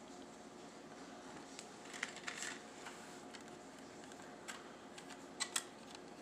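Scattered small, light clicks and taps, a few about two seconds in and two sharper ones near the end, over a faint steady hum.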